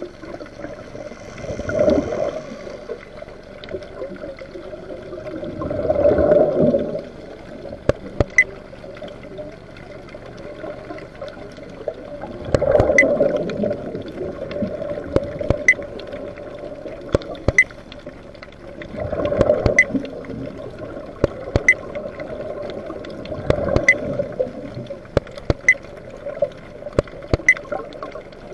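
Underwater sound of a scuba diver breathing through a regulator: a rushing gurgle of exhaled bubbles every four to seven seconds over a steady watery rumble. Sharp clicks come roughly once a second through the second half.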